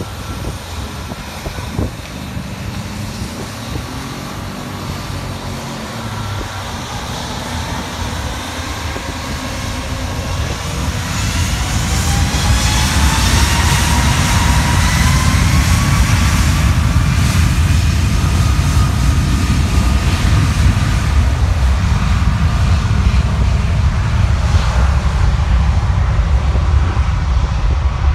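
Jet airliner's engines spooling up to takeoff thrust: whines rise in pitch from about ten seconds in, then give way to a loud, steady low rush of jet blast buffeting the microphone.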